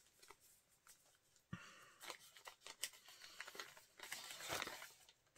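Faint rustling and crinkling of a paper note being handled and unfolded, with a few light clicks.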